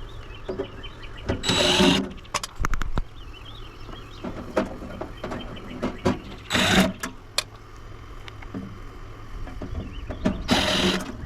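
Small electric motor whirring in three short bursts about five seconds apart, typical of a cordless drill or driver backing screws out of a coffee maker being taken apart, with light clicks and clatter of parts in between.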